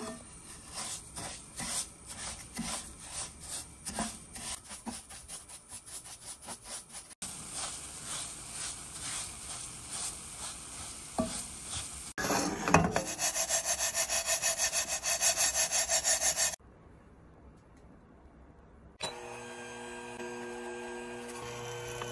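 Wooden spatula stirring and scraping perilla seeds around a dry pan as they roast, in quick rhythmic strokes. About three seconds before the end a steady hum with several held tones comes in.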